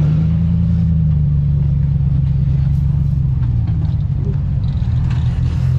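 Ford F-250 Super Duty pickup's engine running steadily at low revs while crawling on the trail, a loud low drone whose pitch dips slightly near the end.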